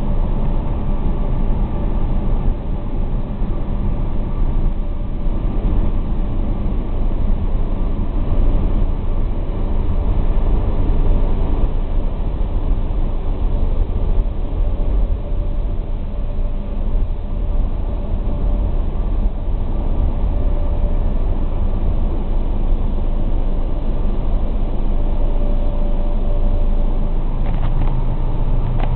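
Automatic car wash drying blowers running, a loud, steady low rumble heard from inside the car's cabin.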